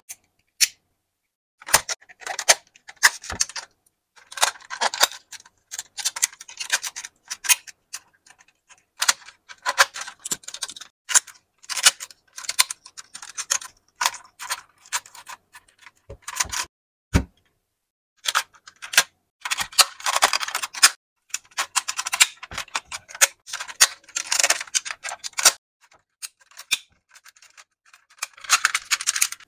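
Plastic parts of a DX Go-Buster Ace transforming robot toy clicking, snapping and scraping as they are folded and locked by hand from car mode toward robot mode. It is an irregular run of sharp clicks with stretches of rubbing and rattling between short pauses.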